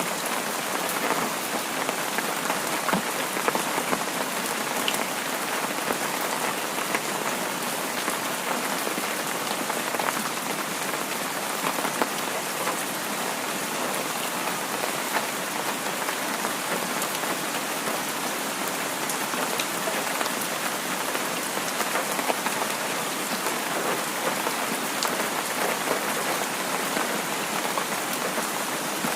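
Heavy rain falling, a steady hiss with many small drop ticks pattering through it.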